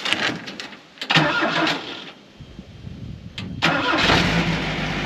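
A few knocks as someone climbs into the cab, then the Ford Model A pickup's engine is cranked over by the starter for about a second and catches near four seconds in, settling into a steady idle on its newly fitted fuel pump.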